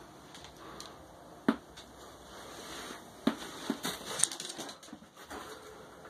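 Pet rabbits scampering on a bare plywood floor: a few sharp knocks and scuffles from their feet, bunched together about three to four and a half seconds in.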